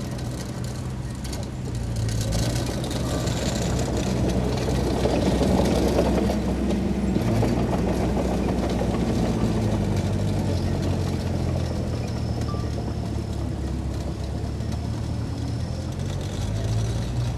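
Heavy diesel engine of an earthmoving machine running steadily under load. It gets louder about two seconds in and eases off slightly toward the end.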